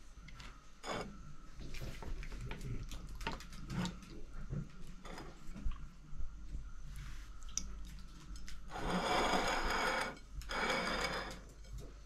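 Plastic serving spoon knocking and scraping against a glass baking dish and a ceramic plate while roast pigeon and potatoes are served, in scattered short clicks. Near the end come two longer scraping noises, the loudest sounds here.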